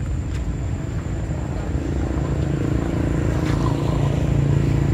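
A motor vehicle's engine running nearby, a steady low hum that grows louder from about two seconds in.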